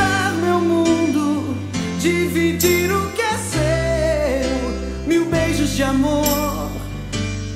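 Recorded Brazilian pop ballad playing, a stretch with no lyrics heard: sustained bass notes under a gliding melodic lead. The bass and treble are boosted by equalisation.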